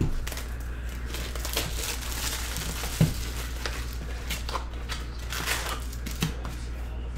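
Plastic shrink-wrap being crinkled and torn off a sealed trading-card box, then the cardboard box opened and the foil card packs handled, with a sharp knock about three seconds in.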